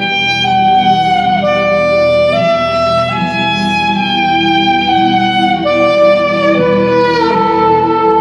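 Alto saxophone playing a slow melody of long held notes that step up and down, over a steady sustained backing chord.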